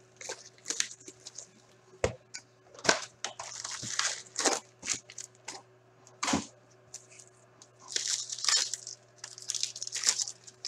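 Plastic wrap being torn off a hockey card box and a card pack being ripped open, in irregular crinkling, tearing bursts. Two dull knocks come about two seconds in and past the middle.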